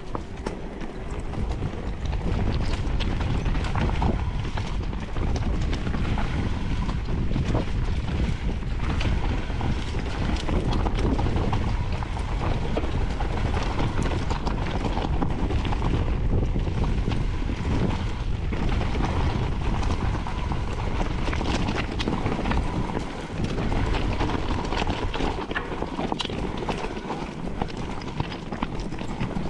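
Wind buffeting the microphone over a steady rumble of knobbly tyres on a rough, stony trail, with frequent rattling knocks from an electric mountain bike jolting over rocks.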